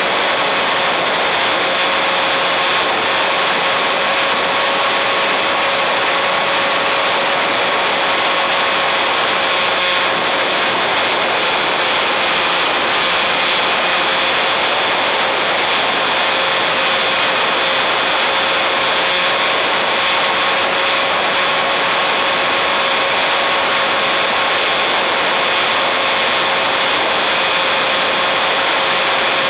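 Electric RC model airplane's motor and propeller running steadily in flight, a constant whine under heavy wind rush on the plane-mounted camera's microphone.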